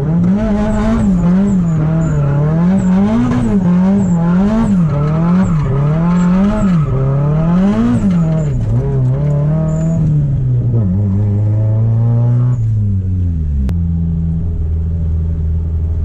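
Car engine revved up and down in quick repeated throttle pulses, about two a second, then held at a steady speed and dropping to idle about thirteen seconds in.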